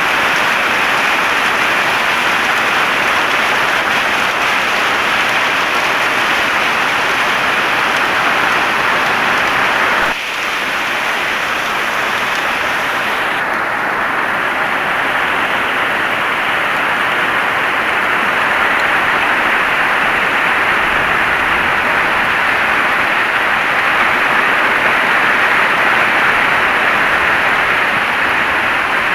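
Heavy rain pouring steadily, a dense even hiss. There is a brief dip about ten seconds in, and a few seconds later the sound turns a little duller.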